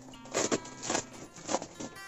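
Background music with held notes, over a few sharp, uneven crackles of bubble wrap being pulled and handled.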